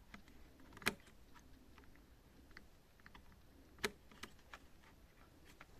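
Faint, scattered clicks and taps of a small screwdriver working on a laptop hard drive's mounting screws and the plastic around them, with two sharper clicks, about a second in and near four seconds.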